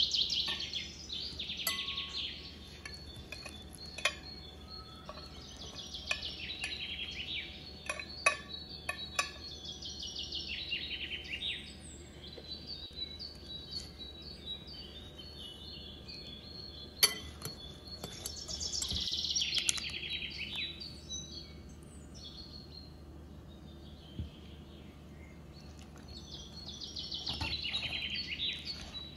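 Birdsong: a quick falling trill of a second or two, repeated every several seconds. Between the trills, a wire whisk clinks now and then against a glass mixing bowl, the sharpest clink at about the middle.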